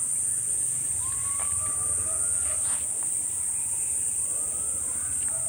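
Steady, high-pitched insect chorus droning without a break, with a low hum underneath.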